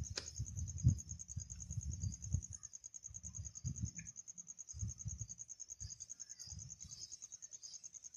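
An insect chirping in a steady, rapid, high-pitched trill of evenly spaced pulses, over irregular low rumbles that are loudest in the first couple of seconds, with one sharp click just after the start.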